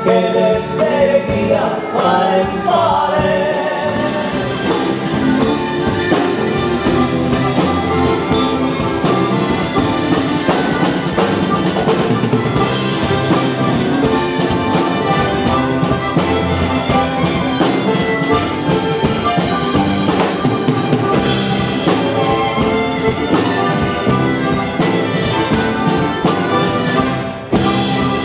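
Live folk band playing an instrumental passage: acoustic guitars, a wind instrument and a drum kit, at a steady loud level.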